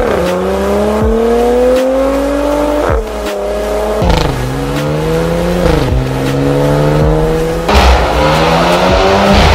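Porsche Macan 2.0T's turbocharged four-cylinder engine through an aftermarket valvetronic exhaust, accelerating hard. Its pitch climbs steadily, then drops at each upshift, several times over. A loud sharp burst comes near the end.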